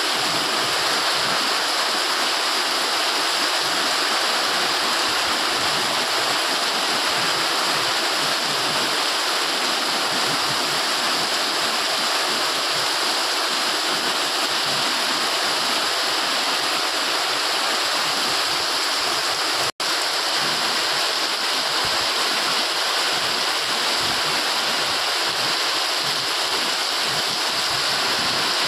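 Heavy rain pouring down, a loud, steady, dense hiss that cuts out for an instant about twenty seconds in.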